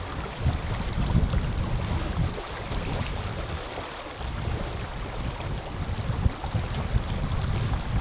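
Gusty wind buffeting the microphone, in uneven low rumbles, over a steady rush of flowing river water.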